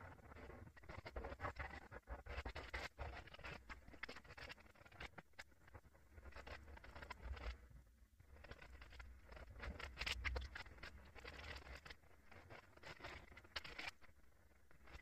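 Faint, irregular scratching and dabbing strokes of paint being worked onto a stretched canvas on an easel, with short pauses between bouts.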